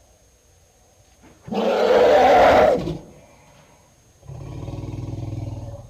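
Elephant calls: a loud, harsh trumpeting blast about a second and a half in, lasting just over a second, then a lower, quieter, steady-pitched call near the end.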